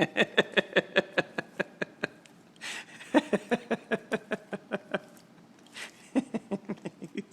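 A person laughing hard in quick pulses, about five a second, in three runs with a gasping breath between them.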